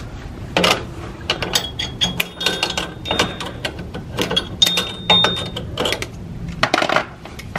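Long-nose pliers clicking and scraping against a drum brake's coil return spring and steel brake shoes as the spring is stretched and unhooked, with a thin high metallic ring twice.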